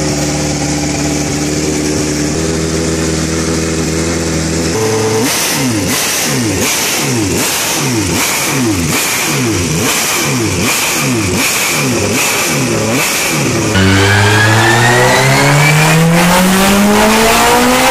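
Aurora Hellfire V8 motorcycle engine idling steadily, then revved again and again, rising and falling about once a second. About 14 s in, louder, a V8 bike pulls on a dynamometer, its revs climbing steadily.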